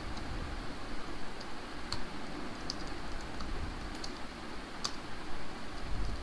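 Computer keyboard being typed on: light key clicks at irregular spacing as a command line is entered, over a steady low background hum.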